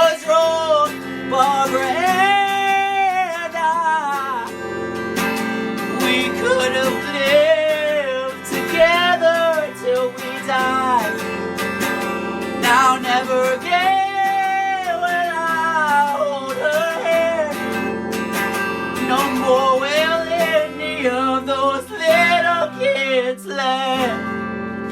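Acoustic guitar song with a male voice singing long, held notes without clear words; the music starts to die away near the end.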